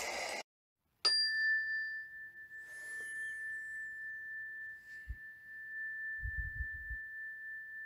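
A rain-sound track cuts off just after the start; about a second in, a meditation bell is struck once and rings on as a single long, steady high tone.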